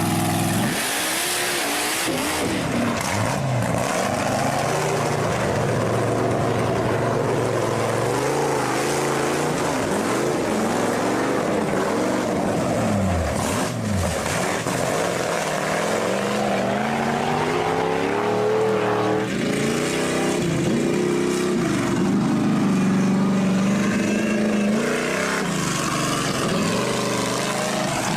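Monster truck engine sound effect: a big engine revving up and down over and over, its pitch dropping and climbing repeatedly, then holding a steadier, higher pitch for a few seconds near the end.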